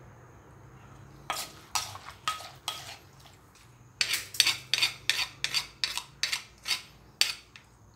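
Wooden pestle pounding corn som tam in a clay mortar while a plastic spoon turns the mix, with a sharp knock at each stroke. Four knocks come after about a second, then a short pause, then a quicker run of about three knocks a second.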